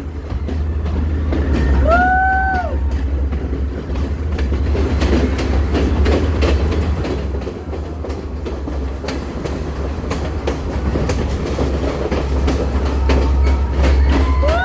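A train running with a steady low rumble and a rapid clatter of wheels over the rails. A short horn blast sounds about two seconds in.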